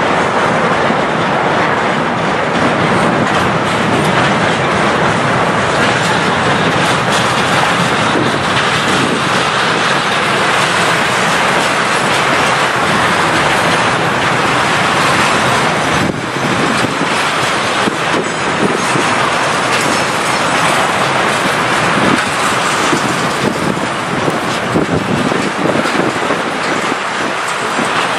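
Freight train rolling past, its wheels clattering over the rail joints, with a light squeal from the wheels.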